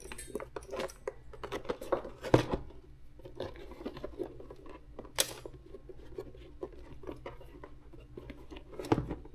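Hands handling a hat and a length of electroluminescent wire in vinyl piping: scattered light clicks and rustles, with a sharper click a little over two seconds in and again about five seconds in.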